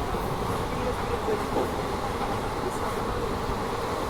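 Passenger train running along the track: a steady rumble of wheels and carriages.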